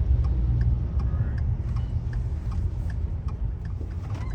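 A car's turn signal clicking about twice a second over the low rumble of the engine idling, heard from inside the cabin.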